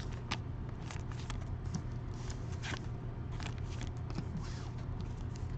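Trading cards being handled and sorted: scattered light rustles and clicks over a steady low hum.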